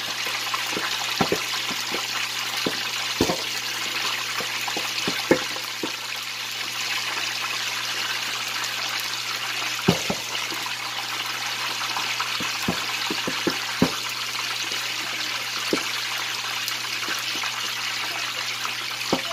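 Pork hock deep-frying in hot oil under a pan lid: a steady sizzle with scattered sharp pops as water in the meat spits in the oil, the loudest about five and ten seconds in and a cluster around thirteen seconds.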